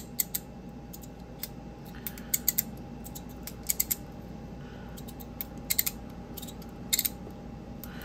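Stainless steel magnet-and-spring fidget toy being worked in the hand: small metal clicks and taps come a few at a time as its parts slide and snap, over a faint steady hum.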